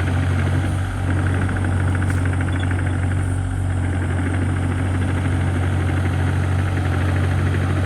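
An engine idling with a steady, deep hum and an even fine pulse that does not change.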